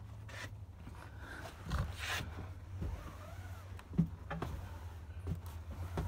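Handling noise: faint rubbing and rustling with a few short knocks, the sharpest about four seconds in, over a steady low hum.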